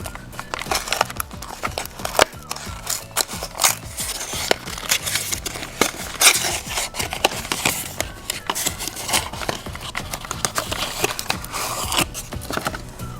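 Crinkling and crackling of chocolate surprise-egg packaging being handled and unwrapped, many sharp irregular crackles, over background music.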